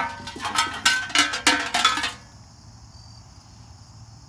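Glass clinking and knocking as it is handled: a quick run of sharp clicks with a short ring, lasting about two seconds. After that, insects keep up a faint steady trill.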